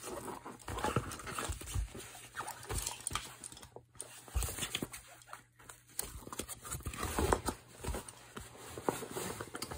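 A fabric drawstring pouch being handled and worked open by hand: irregular rustling of the cloth with scattered small clicks and knocks, pausing briefly a couple of times.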